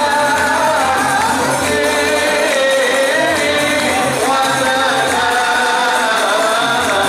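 Srakal (terbang Jawa) music: a man and a girl singing a melody into microphones over the steady beat of Javanese terbang frame drums.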